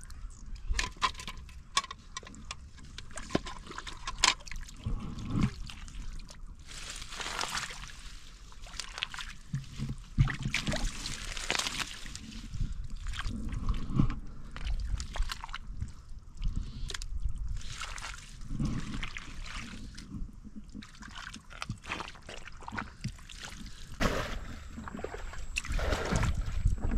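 Hands digging and groping through wet mud and shallow water among water hyacinth stems: irregular squelching and splashing, with scattered wet clicks.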